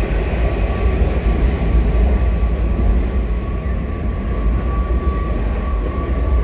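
Low, steady rumble of a Washington Metro train that has just pulled out of the station, running on through the tunnel, with a thin steady whine over it.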